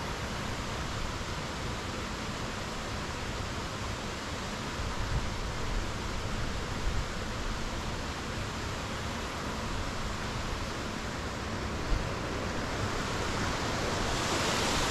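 Steady rushing noise with no distinct events, growing a little louder near the end.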